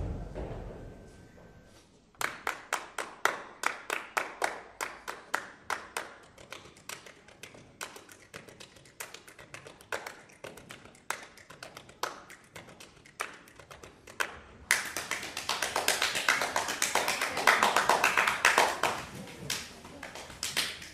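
Hand clapping: a ringing drum tone fades out over the first two seconds, then separate sharp claps come about three a second. About two-thirds through the sound switches abruptly to dense, louder clapping.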